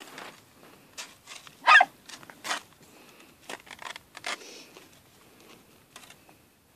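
Avalanche search-and-rescue dog giving short barks as it digs into the snow at a buried person, its alert that it has found the target; the loudest bark comes about two seconds in.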